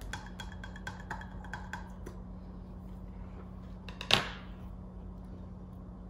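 A plastic snack wrapper crinkling and clicking in the first couple of seconds, then one short loud slurp as a drink is sipped from a plastic cup about four seconds in. A steady low hum runs underneath.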